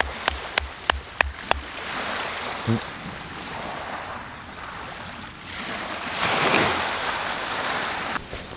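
A small hammer tapping on a paper packet laid on a rock, about three quick taps a second, stopping about a second and a half in. Then a steady wash of surf and wind, which swells around six seconds in.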